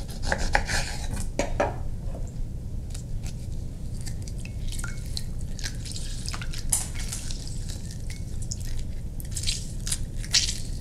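A lemon being juiced by hand: a knife cutting through it on a wooden board, then the half squeezed and reamed with a fork over a small ceramic bowl, juice dripping and the fork clicking and scraping against the bowl. Many short clicks and scrapes throughout, over a low steady hum.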